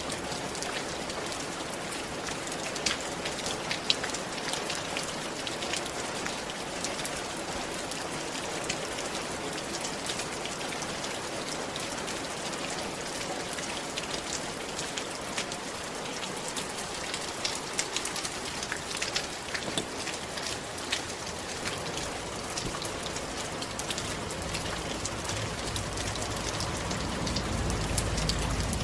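Steady rain on a roof, a dense hiss with many sharp drop impacts ticking through it. A low rumble swells in the last few seconds.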